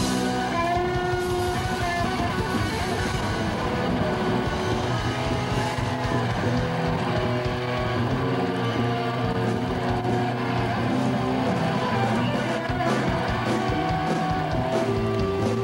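Live rock band playing without vocals: distorted electric guitars hold ringing chords over drums and cymbals.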